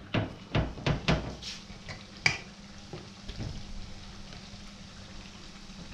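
Kitchen work noises as hands pat and press corn-flour empanada dough flat on a plastic sheet over a plastic cutting board. There are a few short soft knocks in the first second or so and a sharp click about two seconds in, followed by a steady low hiss.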